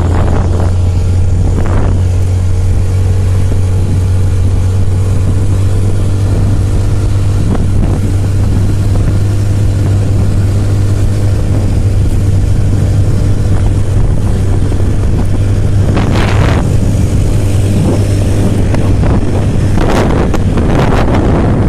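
Motorbike riding along with its engine running steadily, under heavy low wind rumble on the microphone. Louder gusts of wind noise come twice in the second half.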